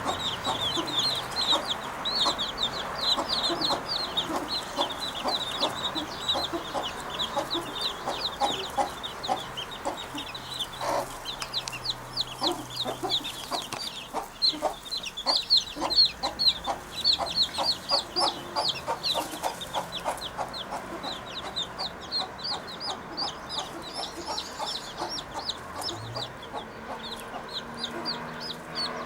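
Birds calling continuously in quick, short chirps several times a second, with lower clucking notes that sound like a hen.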